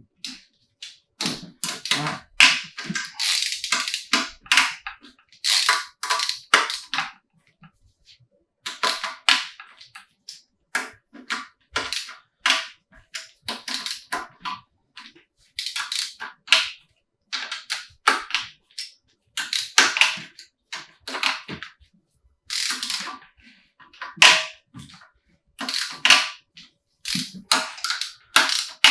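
Repeated sharp metallic clicks and clatters in short runs with brief pauses between them, from hand tools and parts being worked during an engine teardown.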